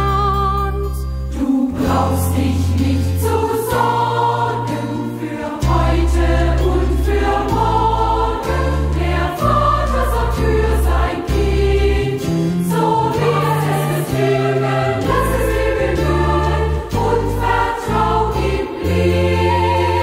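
A youth choir singing a German sacred song in several voices, over instrumental accompaniment with a bass line that changes note about once a second.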